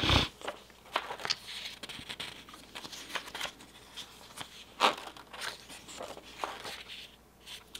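Paper pages of a spiral-bound workbook being turned by hand, rustling and flapping, with a thump right at the start and a sharper slap of paper about five seconds in.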